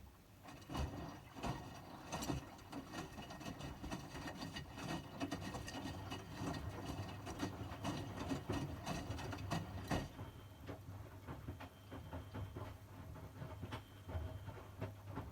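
Miele washing machine starting to run about half a second in: a steady low motor hum with many irregular clicks and knocks from the turning drum.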